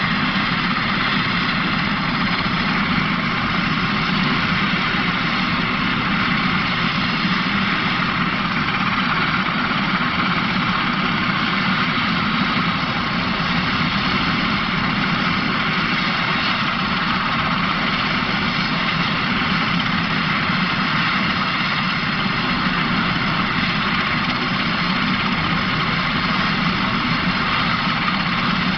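Royal Navy Westland Sea King search-and-rescue helicopter running steadily on the ground, with engines and rotor turning before take-off.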